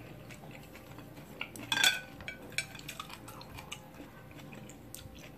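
Chopsticks lightly tapping and clicking against a plate, with a brighter clatter about two seconds in as they are handled and laid down.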